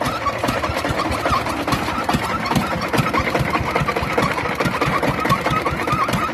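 Engine of a mobile rice-milling machine running with a fast, even knocking beat, with short squeaks over it.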